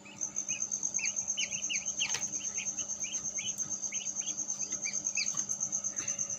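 A cricket chirping steadily in a fast, even pulse, with a run of short high peeps about a second to five seconds in. Under both is a low steady hum from the incubator's fan.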